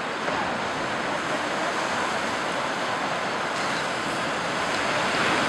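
Steady wash of surf and waves, an even hiss that grows a little louder near the end.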